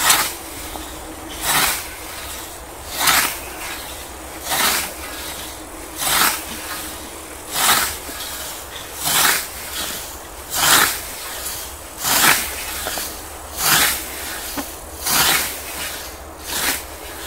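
Rhythmic swishing strokes, about one every second and a half, a dozen in all, each a short rushing swish over a low steady background.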